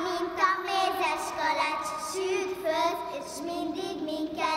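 Young children singing a song, their voices holding steady notes that step up and down.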